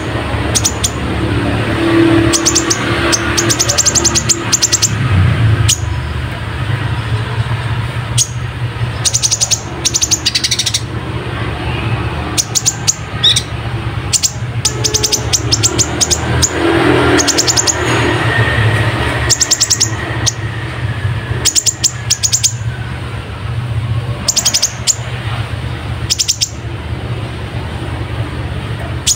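Brown-throated sunbird (kolibri ninja) singing in bursts of rapid, sharp, very high chirps and trills with short pauses between. Its song is stuffed with borrowed house-sparrow-like chirps.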